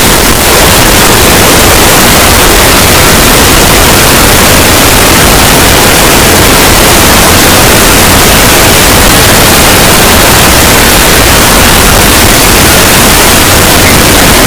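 A logo sound effect boosted far past full scale until it is heavily clipped into a steady, extremely loud harsh static, with no tune or pitch left to hear.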